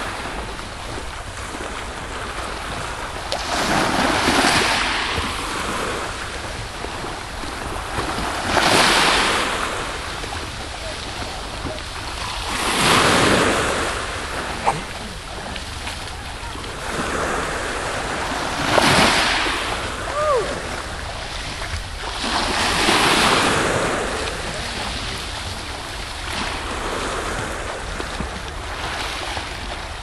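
Small sea waves washing onto the shore, a swell of hissing surf about every four to five seconds, over a steady low rumble of wind on the microphone.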